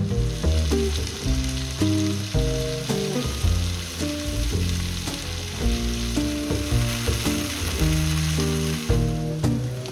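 Food frying in a pan with a steady hiss, which fades away near the end. Background music with a bass line plays underneath.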